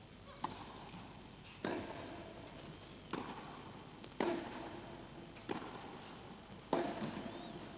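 A tennis serve followed by a baseline rally: sharp racket hits on the ball about once every second and a quarter, six in all, each ringing briefly in an indoor arena.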